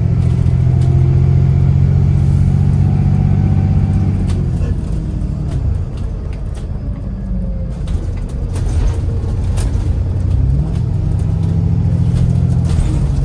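ADL Enviro400 MMC double-decker bus with a ZF automatic gearbox, its engine pulling steadily, then easing off about four seconds in. Several sharp knocks and rattles sound over the quieter running in the middle, the knocking sound the bus is known for. The engine picks up and pulls again near the end.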